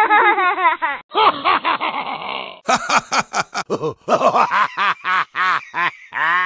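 Several young men laughing in repeated ha-ha bursts, broken off abruptly several times by edits.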